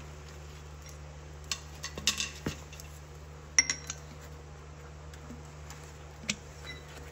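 Liquid-nitrogen-chilled steel bearing race clinking and tapping against metal as it is lifted from the bath and set into the wheel hub bore: a few light metallic clinks, the loudest about three and a half seconds in with a brief ring.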